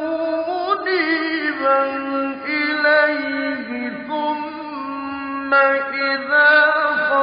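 A lone male voice reciting the Quran in melodic tajweed chant, holding long drawn-out notes that glide between pitches, with a new phrase beginning late on.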